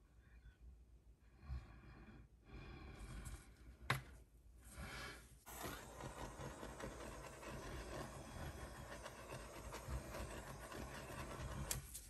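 A handheld heat tool blowing a steady hiss over the wet resin from about five and a half seconds in, cutting off just before the end. A sharp click comes about four seconds in.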